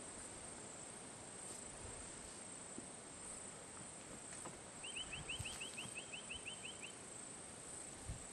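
Steady, high insect drone of outdoor rural ambience. About five seconds in, a brief fast trill of about a dozen quick chirps sounds over it.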